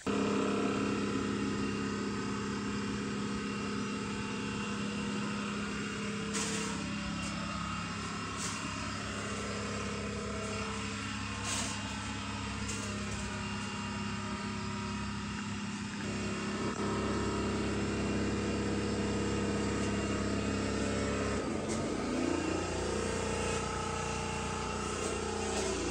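An engine running at a steady speed, its pitch shifting and then rising about three-quarters of the way through as it speeds up.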